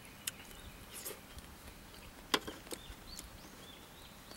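Chopsticks clicking a few times against a cup or dish while eating noodles, the sharpest click about two and a half seconds in, with faint bird chirps in the background.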